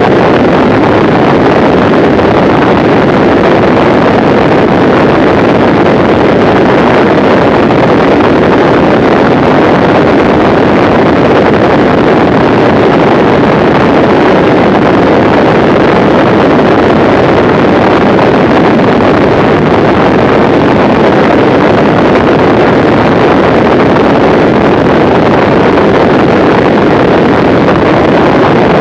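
Loud, steady in-flight noise of a Mooney M20C light aircraft: its four-cylinder Lycoming engine and propeller blend with rushing air at cruise speed. The noise does not change through the whole stretch.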